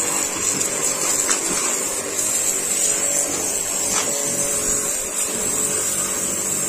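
Pressure washer running: a steady motor and pump hum under the continuous high-pitched hiss of the high-pressure water jet being sprayed onto a metal part.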